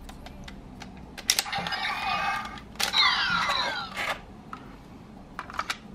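Hard plastic clicks from a Complete Selection Modification Lost Driver toy belt and its Eternal Gaia Memory being handled. In the middle come a couple of seconds of electronic sound effects from the toy's small speaker, with tones sweeping down and up in pitch. A sharp click comes near the end.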